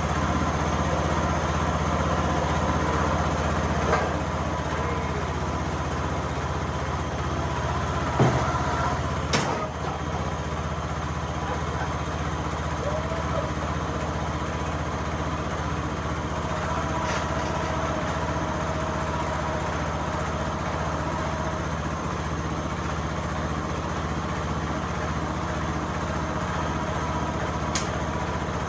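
Wheel Horse riding lawn tractor's engine running steadily, freshly revived after sitting out for two years and running well without any carburettor cleaning. Two sharp clacks stand out about eight and nine seconds in.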